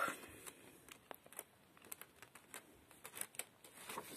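Faint rustling and light taps of printed paper sheets being handled and turned over, a little busier near the end.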